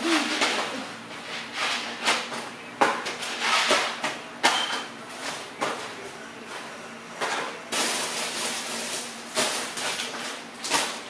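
Small cardboard boxes and packets of groceries being picked up, shuffled and set down on a concrete floor: irregular knocks and rustling, a few a second.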